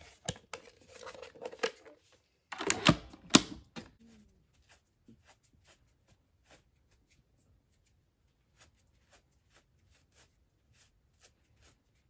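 Hands handling cotton balls and plastic parts: rustling and sharp clicks in the first four seconds, loudest around three seconds in, then only faint scattered ticks.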